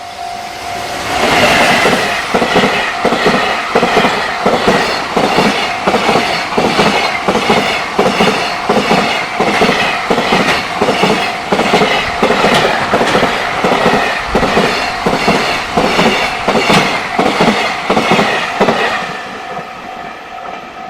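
Freight train passing a level crossing at speed, its wagon wheels clattering over the rail joints in a fast, even rhythm for about eighteen seconds. The crossing's warning bell rings steadily before the train arrives and is heard again as the last wagons clear.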